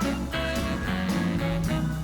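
Background music: a guitar-led instrumental with a steady, even beat.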